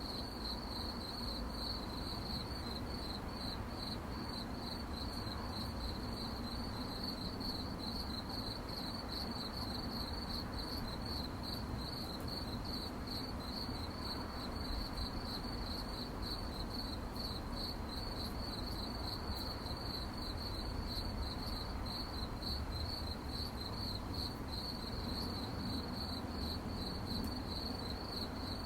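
Crickets chirping at night in a steady chorus of rapid, even high-pitched pulses, over a faint low background hiss.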